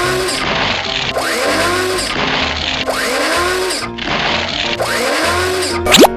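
Background music with a whirring, machine-like sound effect that repeats about every two seconds, then three quick rising glides near the end.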